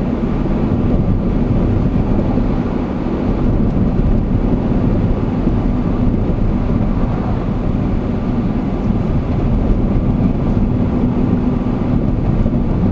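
Car driving along a road, heard from inside the car: a steady engine hum over continuous tyre and road rumble.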